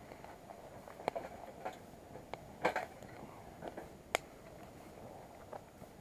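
Wood fire crackling in a small steel fire box (Tentipi Hekla 7), with scattered sharp snaps and clicks at irregular intervals, the strongest cluster about midway.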